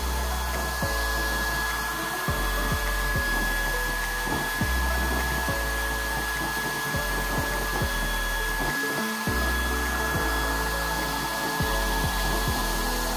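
Small electric blower fan forcing air into a homemade waste-oil stove burner, with a steady rush of air and a thin, constant whine.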